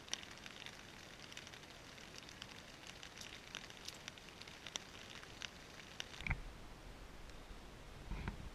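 Faint, scattered raindrops tapping on a tent fly. About six seconds in a thump, then a low wind rumble on the microphone, with another thump near the end.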